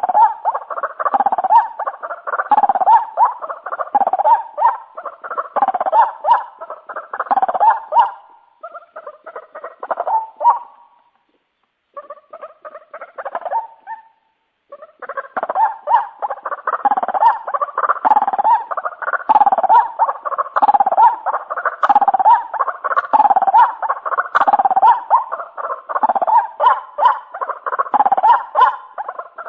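White-breasted waterhen (ruak-ruak) calling over and over, a steady run of repeated calls at about one or two a second. The run breaks off about eight seconds in, with a few scattered calls and short silences, and starts again steadily about fifteen seconds in.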